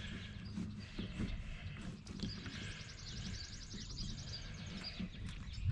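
Small metallic clicks and taps of a long straight Allen key working the carburetor bolts on a Husqvarna 350 chainsaw, with a rapid run of fine ticks in the middle, over a low steady hum.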